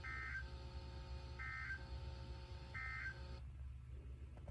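Three short bursts of EAS SAME end-of-message digital data from a NOAA Weather Radio broadcast, each under half a second of two-tone warbling about a second and a half apart, signalling the end of the flash flood warning. A steady low hum runs underneath, and the radio hiss cuts out near the end.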